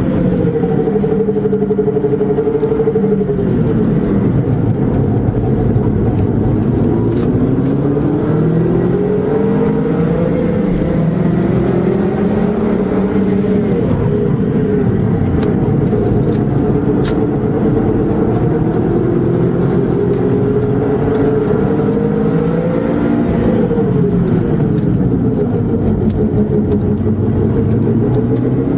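Car engine and exhaust under driving, the note climbing and dropping repeatedly with the speed changes. It has an uneven, unequal-length-header-like burble that the owner suspects is an abnormal exhaust noise.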